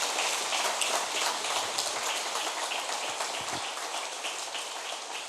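Congregation clapping after the prayer's amen, a dense patter of many hands that gradually dies away.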